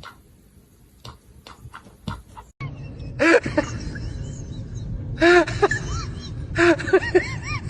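An animal's short, high-pitched calls, coming in quick clusters of rising-and-falling cries, after a few faint taps in the first couple of seconds.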